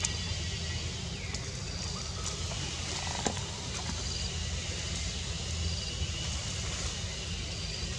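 Forest ambience: a steady low rumble under a high hiss, with a short, high call repeating about every second and a half.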